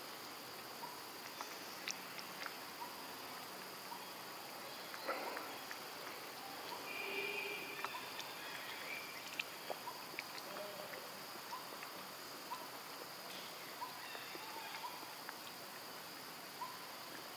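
Outdoor ambience with a steady high insect drone, short chirps about once a second, and scattered faint clicks. A brief faint call sounds about seven seconds in.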